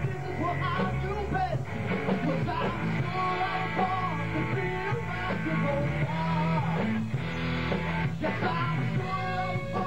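Live rock band playing an original song: electric guitar, bass and drums with a voice singing over them, running steadily without a break.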